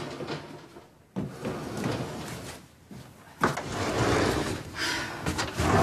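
Wooden sliding doors sliding and rattling open, once about a second in and again, louder, about three and a half seconds in.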